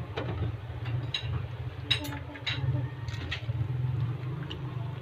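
Cabbage leaves being handled and pressed down in a pot of broth, with scattered light clicks and crackles over a steady low hum.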